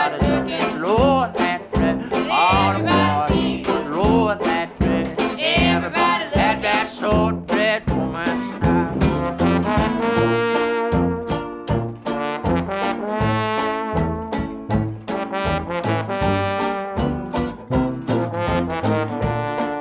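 Traditional jazz band music: trombone and trumpet lines over a tuba playing the bass, with a steady beat.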